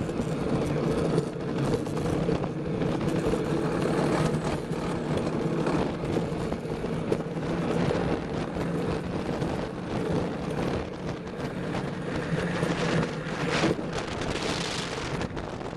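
Wheels rolling fast down a paved track: a steady hum and rumble of tyres on asphalt, with small knocks from the bumps and wind buffeting the microphone.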